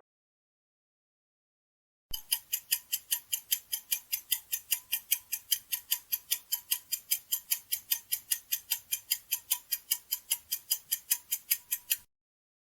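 Ticking-clock sound effect, quick even ticks about four a second, starting about two seconds in and running for some ten seconds before stopping: a quiz countdown timer giving time to guess.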